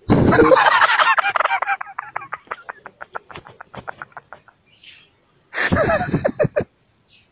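A man laughing hard: one loud outburst that breaks into rapid, breathy pulses and trails off, then a second, shorter burst of laughter near the end.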